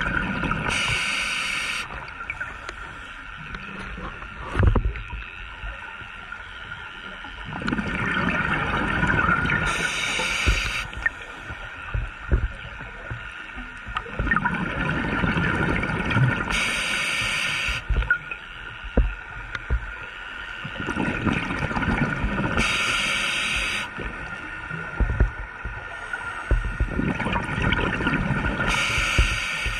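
Scuba diver breathing through a regulator underwater: a short hiss of air about every six seconds, alternating with rumbling, gurgling bursts of exhaled bubbles.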